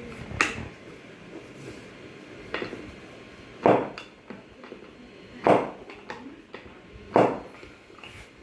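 Sharp knocks from a chiropractic adjustment of the foot and toes: five separate strokes, the three loudest in the second half about every second and three quarters.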